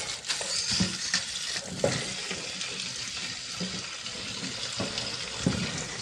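Kitchen tap running into a steel colander of soaked pulses in a stainless-steel sink, with a hand stirring and rubbing the wet grains as they are rinsed. The water runs steadily, with a few short splashes as the hand works.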